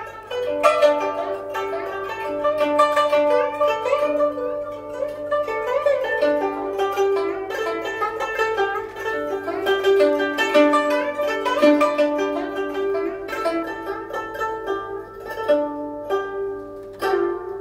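Guzheng (Chinese plucked zither) being played: quick runs of plucked notes on ringing strings, with a strong stroke just before the end.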